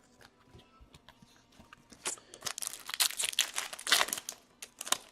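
Hockey card pack wrapper being crinkled and torn open by hand: a few faint rustles and clicks, then a dense burst of crackling tearing about two seconds in, and a short crinkle near the end.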